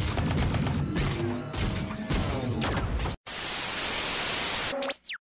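A rapid, dense run of sharp cracks and impacts for about three seconds, then a sudden cut to a burst of TV static hiss. The static ends with a short tone and a quickly falling whistle, like an old TV switching off.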